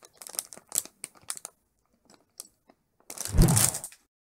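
Thin plastic LEGO polybag crinkling as it is handled, in a run of small crackles, then a louder burst of rustling with a dull thump about three seconds in.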